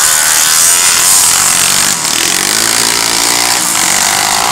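Engines of several three-wheeler ATCs racing around a motocross track, revving hard in a steady buzzing din whose pitch rises and falls.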